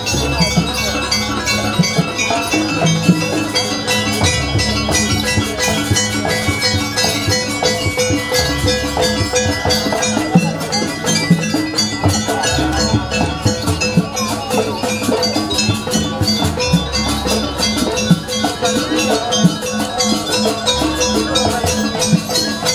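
Jaranan gamelan ensemble playing continuously: fast drum and percussion strokes over held steady tones, with a deep low note returning about every four seconds.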